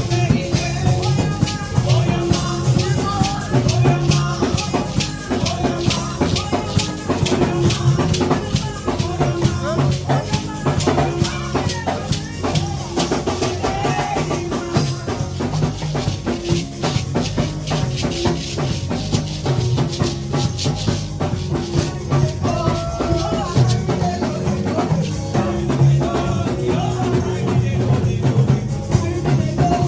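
Live praise music from a band led by a drum kit, keeping a steady beat with bass drum and shaker-like percussion over pitched melodic parts.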